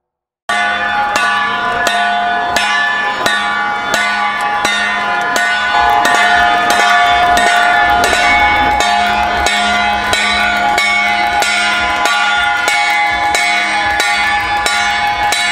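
A metal procession gong struck in a steady beat, about one and a half strikes a second, starting suddenly about half a second in. Its ringing tones carry on between the strikes.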